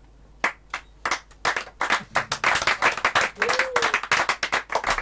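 Audience applauding at the end of a song: a few single claps about half a second in, thickening into steady clapping within a second or so. A short rising-and-falling voice call comes about three and a half seconds in.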